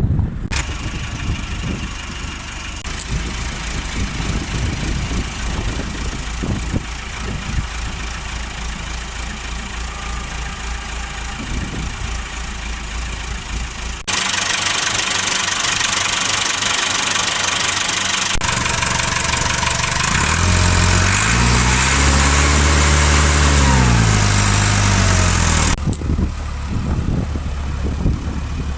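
Caterpillar RC80 forklift's four-cylinder diesel engine running, with abrupt changes in sound at a few points; about twenty seconds in it revs up and settles back down over several seconds.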